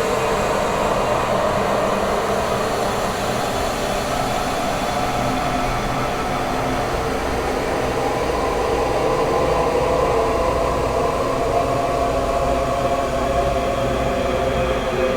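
Dark, ghostly horror ambient drone: a steady, dense wash of noise with faint held tones in the middle range that slowly drift, and a low rumble underneath that grows stronger about six seconds in.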